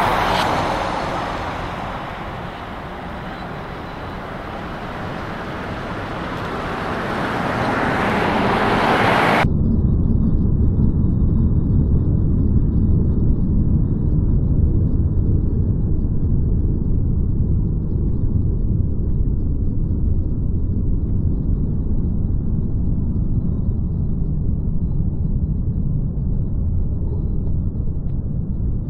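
Trucks driving on a road, a loud passing hiss that swells again about nine seconds in. It then cuts abruptly to a steady low rumble of a heavy truck with its load driving slowly past close by.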